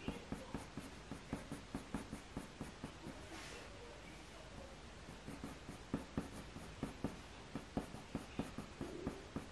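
A Faber-Castell Polychromos coloured pencil scratching on hot-pressed watercolour paper in short, quick strokes, about three a second, as fur is built up in dark brown. The strokes thin out briefly around the middle while the pencil is lifted.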